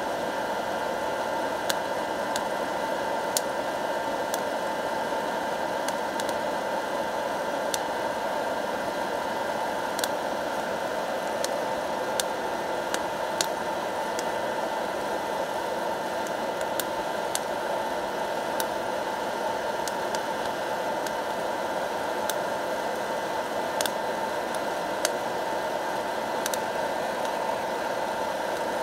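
Hot-air popcorn popper roasting coffee beans: its fan blowing a steady rush of hot air, with scattered sharp clicks every few seconds.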